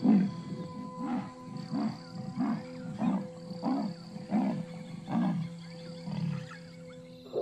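Female leopard calling: a long series of short low grunts, about one and a half a second, growing fainter toward the end. It is a mother's call for her cub, here a cub that has already died.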